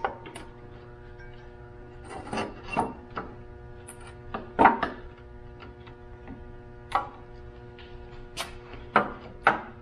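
Scattered metallic clinks and knocks of a hand ratchet wrench working the bolts under a turbocharger, separate hits with quiet gaps between them, over a steady faint hum.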